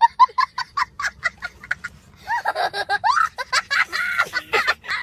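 A young boy laughing hysterically: a fast run of short, high 'ha' bursts, about six a second, then a longer, high, wavering laugh whose pitch swoops up and down.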